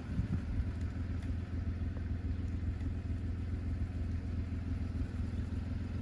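Car cabin on the move: a steady rumble of engine and tyres on the road.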